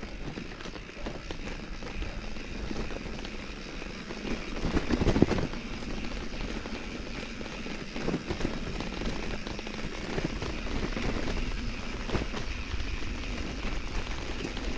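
Mountain bike riding along a dirt trail: steady tyre and wind noise with scattered small knocks and rattles. There is a louder swell of noise about five seconds in.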